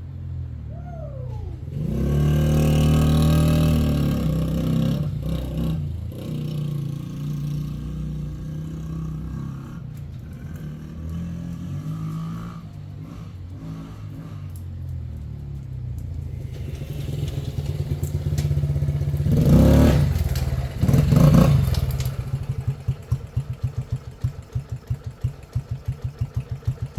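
Yamaha Raptor 80 quad's small four-stroke single revving up and running, with two quick throttle blips, then settling to a slow, uneven idle of about four pulses a second. The idle is set slightly low.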